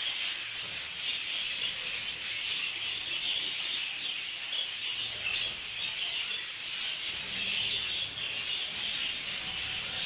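A flock of budgerigars chattering continuously while feeding together, a dense, scratchy warble with no pauses.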